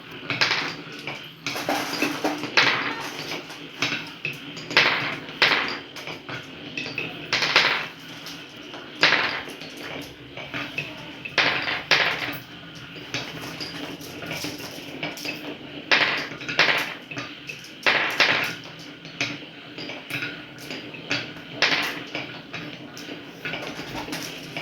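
Marbles rolling and clattering down a marble run track: an irregular string of hard clicks and knocks, several a second, with louder clusters as the balls strike the track and each other.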